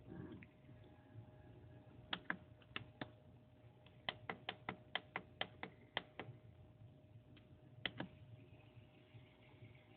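Sharp little clicks from an HO scale model turntable set-up over a faint steady hum. There are two pairs, then a run of about ten at roughly four a second, then a last pair near the end.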